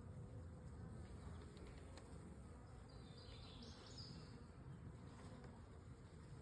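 Honey bees buzzing faintly and steadily around the open hive as its frames are worked.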